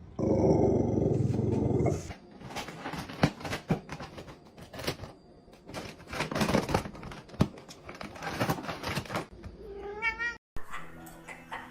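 A cat yowling loudly for about two seconds, followed by scattered knocks and scuffling, and a short rising cry near the end.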